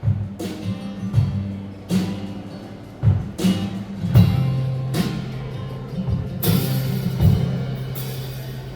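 Live band playing an instrumental passage of a pop ballad, with no singing: drum strokes about once a second over sustained bass notes.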